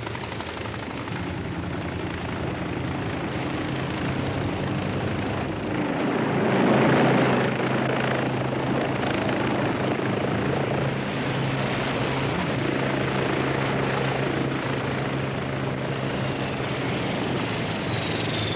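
Helicopter running steadily overhead, a continuous rotor and engine roar that swells a few seconds in. Near the end a high whine slides steadily down in pitch.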